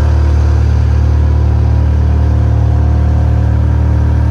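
An engine running steadily at constant speed: a loud, unchanging low drone.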